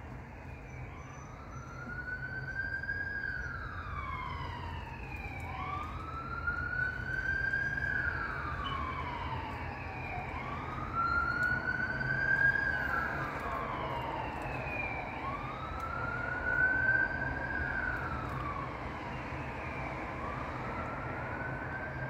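Ambulance siren sounding a slow wail, its pitch rising and falling once every four to five seconds, over steady traffic rumble.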